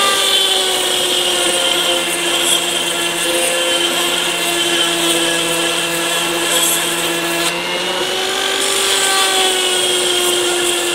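Dremel rotary tool with a small diamond bit running at high speed, grinding a sharpening notch into a hardened steel knife blade: a steady whine whose pitch sags slightly as the bit bears on the steel, over a grinding hiss that briefly eases about two-thirds of the way through.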